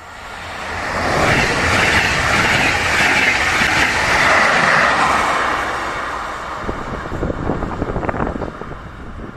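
Red DB Regio double-deck push-pull train with its electric locomotive pushing at the rear, passing at speed. It builds to a loud rush of wheels on rail within the first second, holds for several seconds as the coaches and locomotive go by, then fades with a rough rumble as the train moves away.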